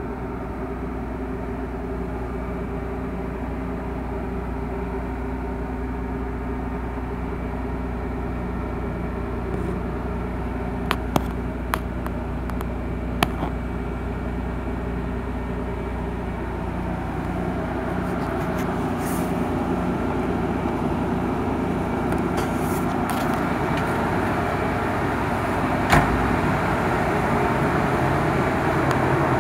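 Nissan 300ZX twin turbo's VG30DETT 3.0 L twin-turbo V6 idling steadily, getting louder near the end. A few sharp clicks come about halfway through, and a single thump comes near the end.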